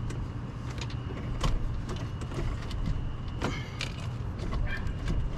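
Scattered metallic clinks, knocks and a short scrape from hand tools and parts during an engine teardown, over a steady low rumble.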